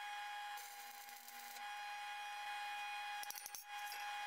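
Stick-welding arc crackling and hissing for about a second as a tack weld is laid on steel flat bar, then a quick cluster of metallic clanks about three seconds in as the clamped steel beam and jig are handled, over a steady faint hum.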